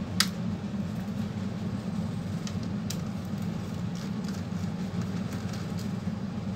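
Steady low background hum, with a sharp click about a quarter second in and a few faint light clicks after it as a small screwdriver works on the hinge screws of a laptop's display.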